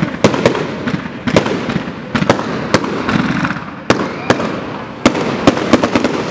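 Fireworks display: a dozen or more sharp bangs from bursting aerial shells and rockets, coming at irregular intervals, some in quick clusters.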